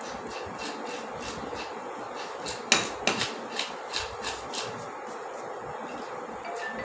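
A large knife chopping a whole fish on a wooden chopping block: light knocks about three a second, with a run of sharper, harder chops about three seconds in, the first the loudest.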